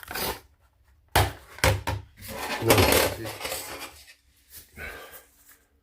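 Metal hand tools, shower-valve socket wrenches, clinking and rattling against each other as they are picked up and handled. There are two sharp knocks about a second in, then a longer jangling rattle.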